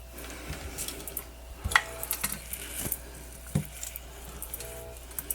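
A few faint, scattered clicks and light taps of small metal hand tools during fine bench work, over a low steady hum.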